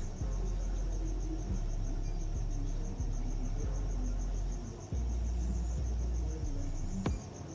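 Steady, rapid, high-pitched insect chirping over a low rumble that drops out briefly every second or two. A sharp click comes near the end.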